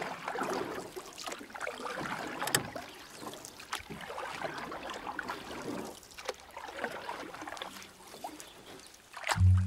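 Water splashing and swishing in repeated swells every two or three seconds, with a few sharp splashes.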